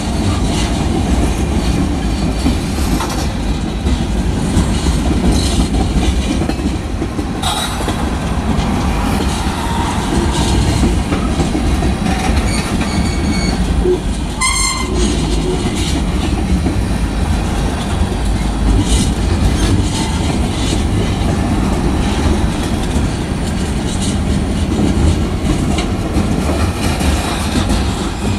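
Freight cars of a manifest freight train (tank cars and covered hoppers) rolling past close by: a loud, steady rumble of steel wheels on rail. A brief high-pitched tone sounds about halfway through.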